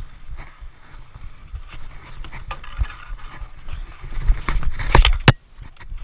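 Dek hockey play on a plastic tile court: scattered clicks and scuffs of sticks, ball and shoes on the tiles, with two sharp stick clacks about five seconds in.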